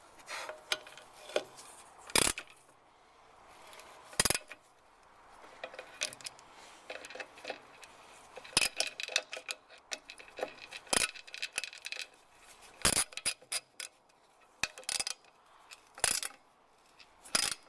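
Hand tools and metal brake parts clinking and tapping in irregular small clicks, with about seven sharper metal knocks spread through, as work goes on at a van's rear drum brake wheel cylinder.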